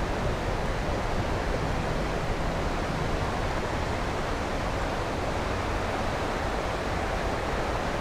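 Steady rush of a shallow, rocky river's flowing water.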